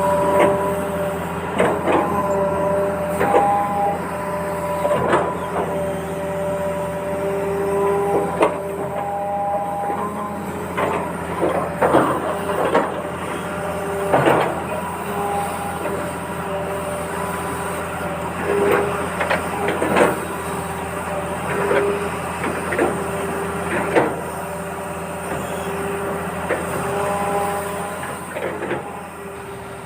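A small DIY model bulldozer running, its motor holding a steady hum with several tones, while frequent knocks and clatters come from the machine as it works.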